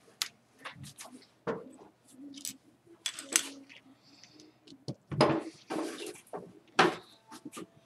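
Small plastic LEGO bricks clicking and clattering on a wooden tabletop as they are picked up and pressed together: irregular sharp clicks, loudest in a cluster a little past five seconds in and once more near seven seconds.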